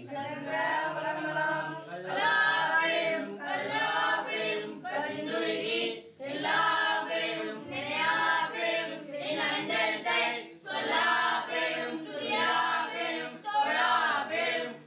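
A group of boys and men singing a Tamil devotional song together, in phrases a few seconds long with short breaks between them.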